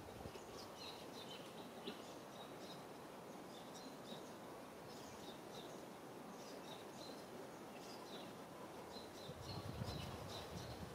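Faint outdoor background with short, high chirps repeating throughout, bird-like. A louder low, muffled noise comes in near the end.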